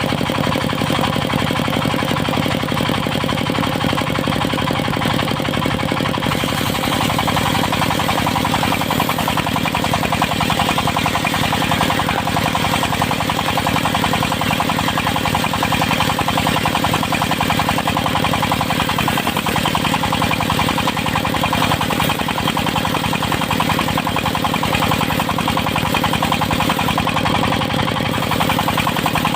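Diesel engine of a circular sawmill running steadily with a fast rhythmic beat; the sound grows fuller about six seconds in.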